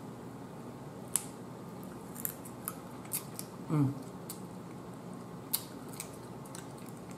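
Boiled blue crab shell being picked apart by hand and nibbled, giving irregular crisp clicks and snaps. Just under halfway through comes a short hummed "mm".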